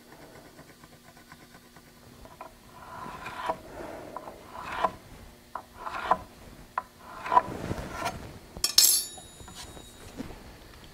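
Lumber being handled and marked on a concrete floor: wood rubbing and scraping against wood in a few strokes about a second apart, then a short metallic clink with a brief ring near the end.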